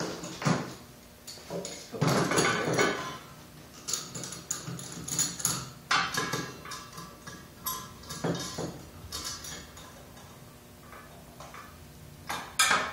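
Steel clamps being handled and set against a steel frame: irregular metallic clanks, knocks and rattles as a clamp post is dropped through the table and tightened against the frame rail.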